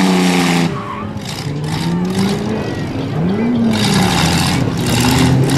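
Demolition derby minivan engines revving hard: a steady high-rev drone drops off about 0.7 s in, then the revs rise and fall. Tyres spinning in the dirt add a hiss in the second half.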